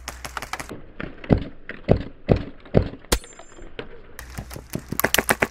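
Airsoft gun shots and handling knocks: a few heavy thuds through the middle, then a quick run of sharp clicks near the end.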